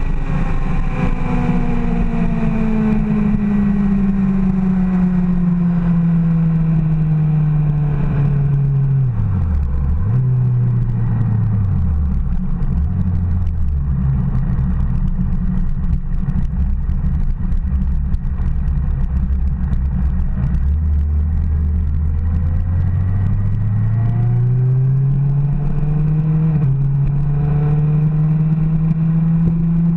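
Sport bike engine heard from on the bike: the revs fall steadily as it slows, drop and blip twice in downshifts about ten seconds in, run low for a while, then climb again under acceleration with a gear change near the end. A steady wind rush underlies it.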